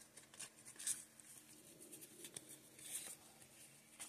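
Faint rustling and sliding of trading cards being thumbed through by hand, card rubbing on card in short intermittent swishes with a few light ticks.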